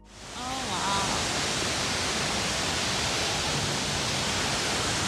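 Steady rush of falling, splashing water, an even hiss, with a faint voice heard briefly about a second in.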